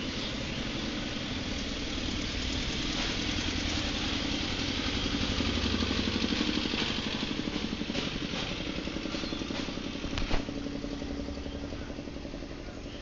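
A motor vehicle engine running steadily, growing louder toward the middle and then fading, with one sharp click about ten seconds in.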